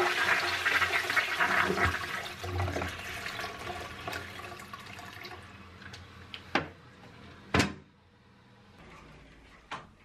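Toilet flushing: water rushes and swirls through the bowl, loudest at first, then fades away over several seconds as the bowl settles. A few sharp clicks sound near the end.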